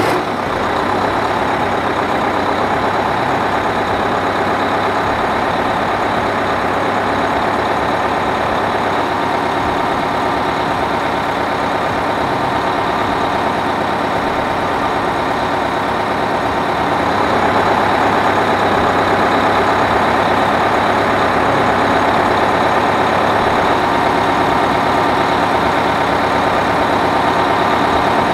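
Bus diesel engine idling steadily, getting a little louder just past halfway.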